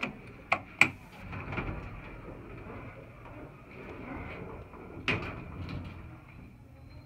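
Kone elevator car: three sharp clicks of the car buttons being pressed in the first second, then the sliding doors running closed and meeting with a thump about five seconds in.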